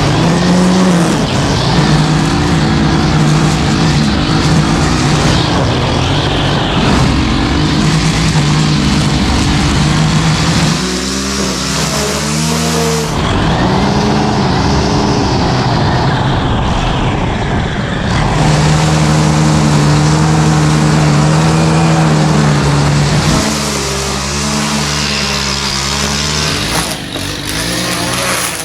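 Small petrol engine of a handheld power tool running at high revs, the revs sagging and picking up again a couple of times as it works under load.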